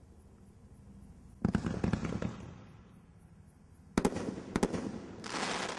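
An 'Overdose' 8-shot consumer firework cake firing. There is a sudden burst of pops and crackles about a second and a half in, sharp bangs at about four seconds, then a hissing crackle near the end.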